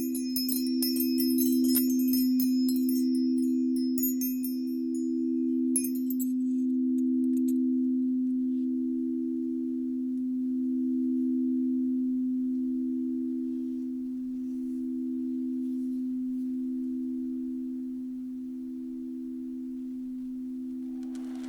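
Crystal singing bowls ringing with two sustained low tones that waver slowly in a gentle pulse and fade gradually. For the first six seconds or so, bright high chimes tinkle over them.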